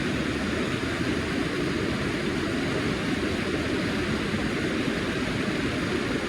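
Steady rushing noise without breaks or distinct events.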